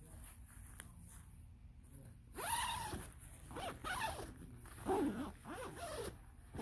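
A nylon tent door zipper being pulled in about four short strokes from about two and a half seconds in. Each stroke gives a buzzy rasp that rises and falls in pitch as the pull speeds up and slows.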